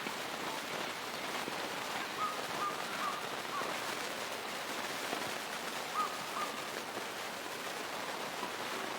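Steady outdoor hiss of wind and light rustling, with a bird calling in two short series of brief notes, the first about two seconds in and the second about six seconds in.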